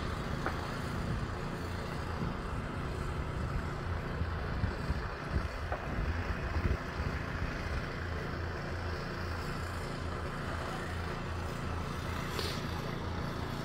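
Steady low outdoor rumble, with wind buffeting the phone's microphone in a heavy snowstorm.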